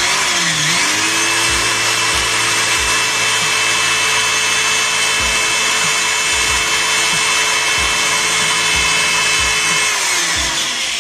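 Khadija SE-01 350 W corded electric drill running at full speed, its bit boring into the edge of a plywood board. The motor whine starts suddenly, dips in pitch briefly about half a second in, holds steady, then falls in pitch as the drill winds down near the end.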